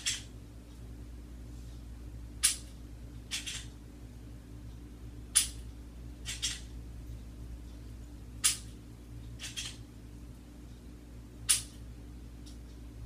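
Smith & Wesson M&P9 pistol dry-fired with a laser training cartridge: four sharp trigger clicks about three seconds apart, each followed about a second later by a quieter, longer sound of the slide being worked to reset the trigger. A faint steady hum lies underneath.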